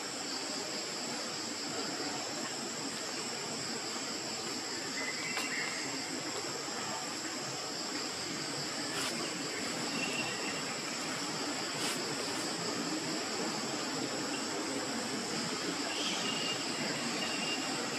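Steady chorus of insects, a continuous high-pitched buzzing drone, with a few faint short chirps and clicks over it.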